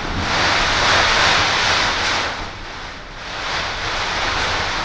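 Thunderstorm noise: a loud, even rush of heavy rain and thunder that swells, eases off about halfway through, then builds again.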